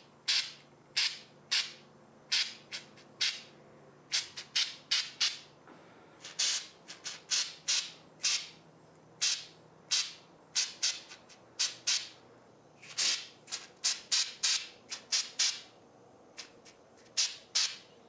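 Flex Seal liquid-rubber aerosol can spraying in many short hissing bursts, each a fraction of a second long, as the coating goes onto tire treads.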